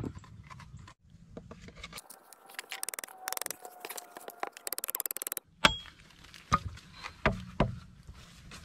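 A machete chopping into a wooden crossbow stock: four sharp knocks, roughly a second apart, in the second half. Before them come a few seconds of rapid, fine scraping.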